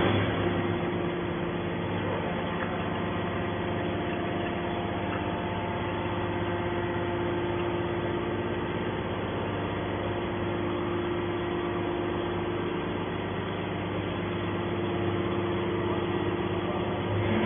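Hydraulic baling press running with a steady machine hum from its motor and pump.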